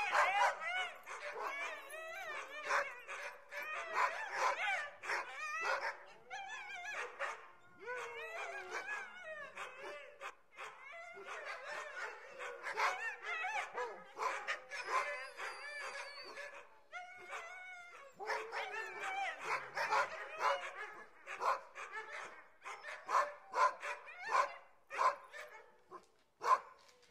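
A dog, or several dogs, yipping, whining and barking in quick, overlapping runs of short high calls, with a few brief pauses.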